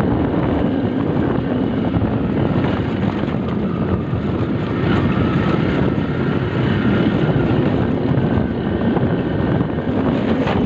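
Motorcycle running along a rough dirt track, its engine mixed with wind buffeting the microphone.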